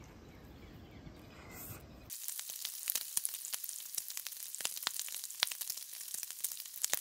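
Bacon sizzling on a hot flat-top griddle: a dense hiss with constant sharp crackling pops, starting suddenly about two seconds in after faint background noise.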